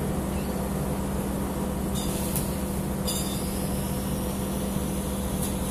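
Window-type air conditioner's compressor running on a test after a leak at its welded joint was repaired: a steady electric hum.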